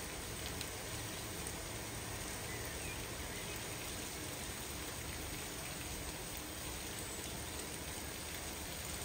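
Steady rushing hiss from a BR Standard Class 4MT tank locomotive taking on water from a water column: water pouring into its tanks, with steam escaping around the engine.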